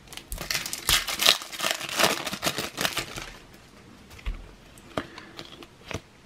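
Shiny foil wrapper of a Topps Cricket Attax trading-card pack crinkling and crackling as it is torn open by hand, for about three seconds. After that come a few light clicks and rustles as the cards are handled.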